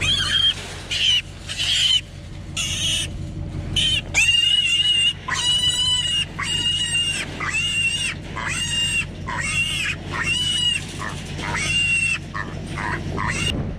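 Feral hog piglets squealing: repeated high-pitched squeals, each about half a second long and coming roughly once a second, with shorter squeals in the first few seconds. These are alarm squeals from piglets being chased around the trap and grabbed for loading.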